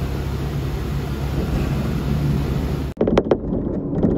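Diesel railcar running on the Senmo Main Line: a steady engine drone and running rumble. About three seconds in the sound cuts to a different stretch, where the wheels clack over rail joints in quick pairs.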